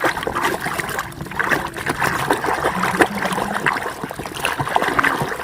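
Water trickling and splashing as a mud-covered toy vehicle is rinsed, with many small irregular splatters.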